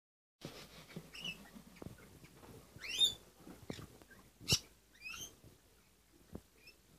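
Pineapple green-cheeked conures in the nest box giving a few short, high squeaky chirps, the loudest a quick rising one about three seconds in: chick begging calls as the parent feeds it. A few sharp knocks sound in between.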